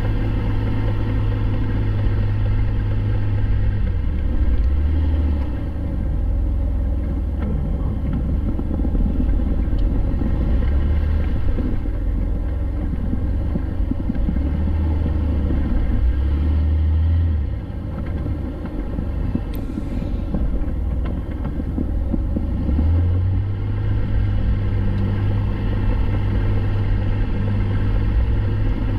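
Jeep Wrangler under way, its engine a steady low drone that shifts in pitch with the throttle and eases off briefly a little past halfway through.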